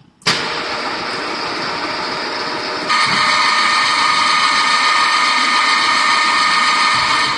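Automatic wafer cone making machine's press drive running as the cone cores lower into the baking moulds: a steady mechanical hiss that starts suddenly, then grows louder with a steady whine about three seconds in.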